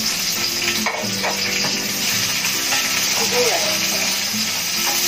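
Chopped onions frying in a non-stick pan, a steady sizzle, with the spatula scraping and tapping against the pan a few times as they are stirred.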